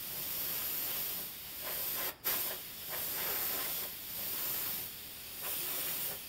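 Airbrush spraying paint: a steady high hiss that swells and eases off in several short passes, cutting out for an instant about two seconds in.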